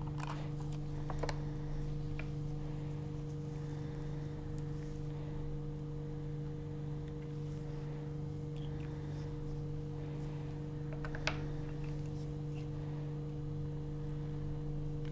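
A steady low hum runs throughout, with a few faint clicks and taps from a micropipette and plastic tubes being handled while water is pipetted into a microcentrifuge tube. The sharpest click comes about 11 seconds in.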